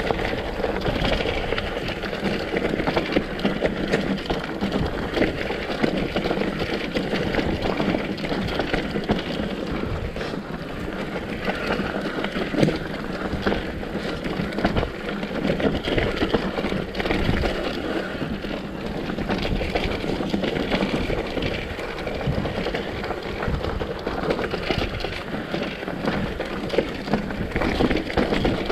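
Mountain bike descending a dirt trail: tyres crunching over dirt and rocks and the bike rattling over bumps, with many short sharp knocks.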